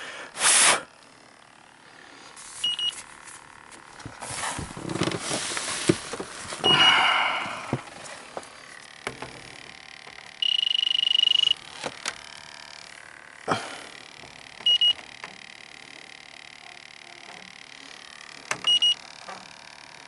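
Electronic refrigerant leak detector beeping: short, high double beeps about every four seconds, and one steady beep about a second long near the middle as its probe works along the refrigerant piping at the indoor coil. Rustling and handling noise during the first several seconds.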